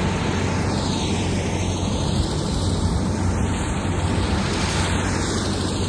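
Steady drone of an aircraft's engines and rushing air heard inside the passenger cabin in flight, a constant low hum beneath an even roar.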